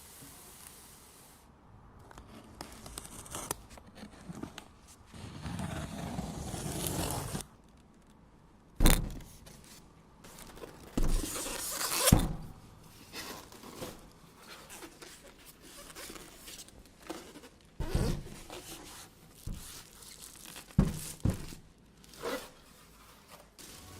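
Hands handling PC parts and their packaging: scraping and rustling, with several sharp clicks and knocks, the loudest about a third of the way in and again about halfway.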